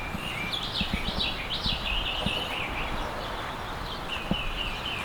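A bird calling: a few quick sweeping notes in the first couple of seconds, then a steady run of short high chirps, about four a second, from about four seconds in.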